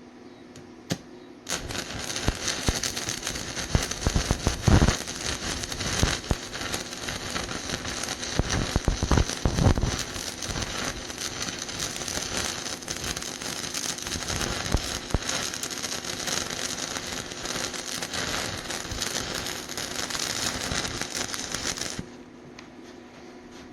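Stick welding arc burning a 3/32" electrode at 75 amps on rusted steel pipe: steady crackle and spatter pops that start about a second and a half in, after a couple of short ticks as the rod is struck. The arc runs for about twenty seconds and cuts off near the end as the arc is broken.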